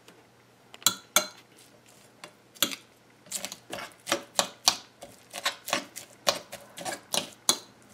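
Metal fork tines clinking against a ceramic plate as cooked fish is flaked apart. There are a few scattered clinks at first, then from about three seconds in a quick, uneven run of about four a second.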